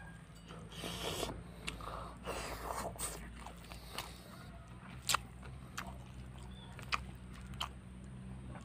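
Close-mic chewing and mouth noises of a man eating rice and fried catfish with his hand, with a few sharp lip-smacking clicks, the loudest about five seconds in, over a low steady hum.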